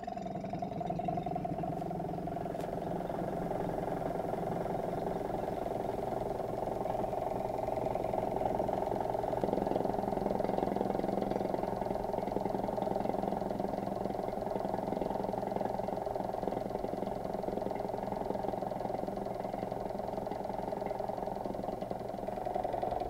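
Laboratory vacuum pump running with a steady mechanical hum as it draws the air out of a sealed container, lowering the pressure until room-temperature water boils.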